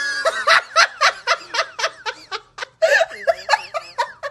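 A person laughing in a high-pitched, rapid string of giggles, about four a second, that stops just before the end.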